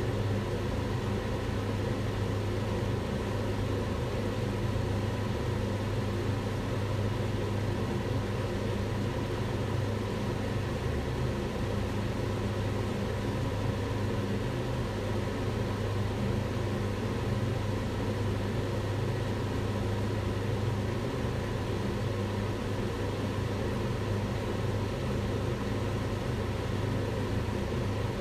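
Kitchen range hood extractor fan running steadily: a constant low hum with a whooshing rush of air over it.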